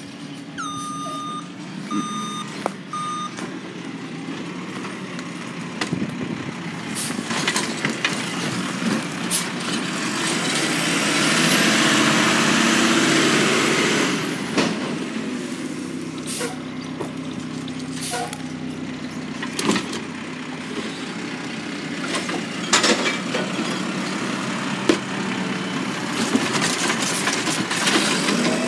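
Garbage truck's diesel engine running steadily close by. Three short backup-alarm beeps sound near the start. A loud hiss of air, like air brakes, lasts about four seconds midway, and scattered metallic clanks come from the truck.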